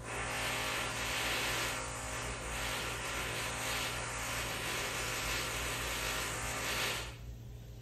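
Loud, continuous power-tool noise from construction work in the neighbouring townhouse, heard through the walls; it cuts off near the end.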